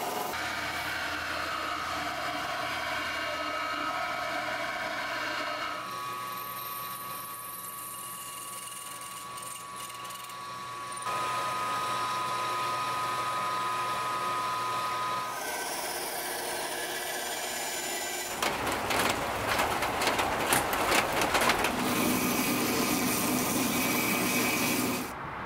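Shop power tools in a run of short cuts: a small belt grinder grinding the steel tang of a knife, a drill press drilling pin holes through it, and a belt sander shaping wooden handle scales. Each tool runs steadily and then the sound changes abruptly. The loudest, harshest stretch comes about two-thirds of the way through.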